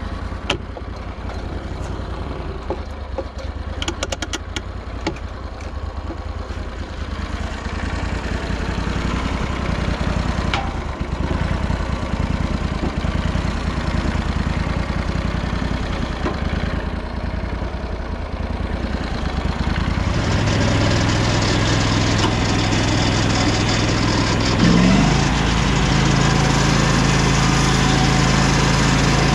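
The Lucas Mill 618 sawmill's 18 hp Vanguard V-twin engine runs steadily at low speed, with a few light clicks in the first seconds. About two-thirds of the way through it is throttled up and runs louder and higher, with a brief rise in pitch a few seconds later.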